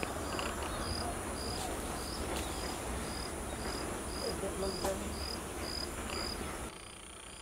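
Crickets chirping in an even rhythm, about two short chirps a second, over a continuous thin high insect trill and a low rumble; the sound drops quieter near the end.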